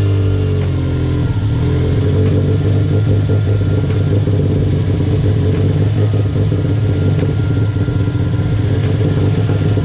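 Subaru flat-four engine with HKS equal-length headers idling just after start-up; its revs fall from the start-up flare in the first second or so, then settle into a steady idle.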